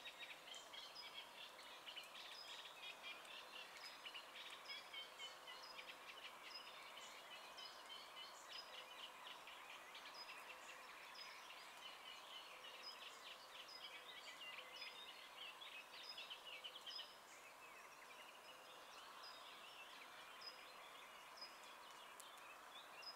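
Faint birdsong in the open: a short high note repeated a little more than once a second over busier twittering, which thins out about three-quarters of the way through.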